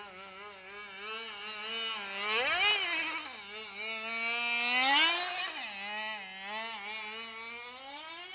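Small nitro engine of a TS4N radio-controlled touring car running and revving as the car drives: a steady buzz that rises sharply in pitch and falls back twice, about two and a half and five seconds in, the second time loudest.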